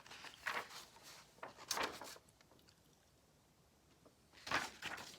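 Paper rustling as booklet pages are turned and handled: three short swishes, the loudest near the end.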